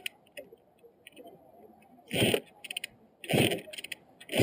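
1984 Kawasaki KX125 two-stroke dirt bike being kick-started: three kicks about a second apart, each a short whoosh as the engine turns over without firing, followed by faint rattling ticks. It cranks but won't catch, with fuel dripping from the exhaust pipe, which the owner suspects means it is flooded.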